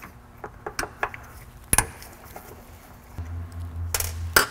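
Light clicks and knocks of a screwdriver and small distributor parts being handled and set down on a workbench. There is a louder knock near the middle and two sharp ones near the end. A low steady hum comes in about three seconds in.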